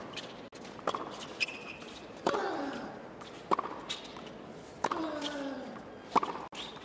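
Tennis rally on a hard court: sharp racket-on-ball strikes about every 1.3 seconds, every other strike joined by a player's short grunt that falls in pitch, with a brief high sneaker squeak on the court.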